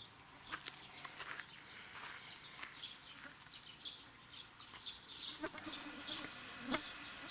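Faint animal calls: many short, high chirps repeating irregularly, with two sharp clicks in the second half.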